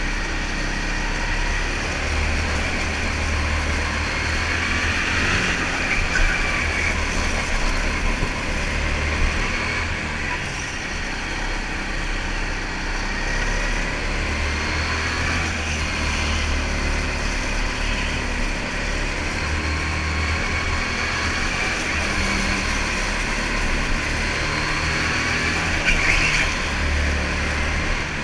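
Go-kart engine running at speed, its pitch rising and falling every few seconds as it revs up and eases off.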